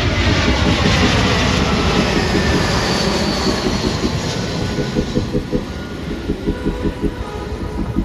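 Airbus A320 jet airliner passing close on landing approach: a loud jet roar with a whine that falls in pitch as it goes by, easing off slightly in the second half.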